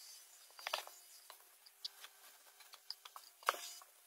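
Rubber grout float scraping and smearing grout across glazed subway tiles: faint, irregular scrapes and clicks, the loudest about three and a half seconds in.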